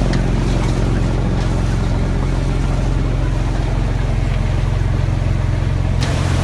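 A heavy machine's engine running steadily with a low drone. About six seconds in, a brighter hiss comes in suddenly.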